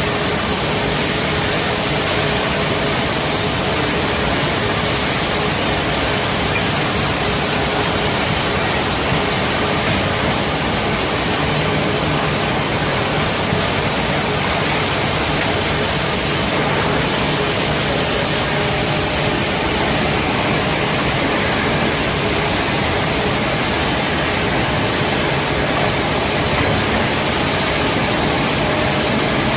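Woodworking finger-joint line running steadily: an even, unbroken rush of machine noise with a faint steady hum underneath and no separate knocks.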